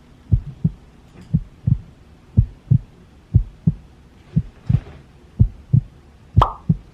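A heartbeat-style pulse: low double thumps repeating about once a second, with a single sharp crack near the end.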